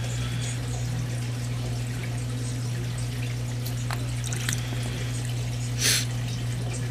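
Small water sounds and drips in a plastic container of aquarium water as coral frag plugs are rinsed, over a steady low hum. A short hiss comes about six seconds in.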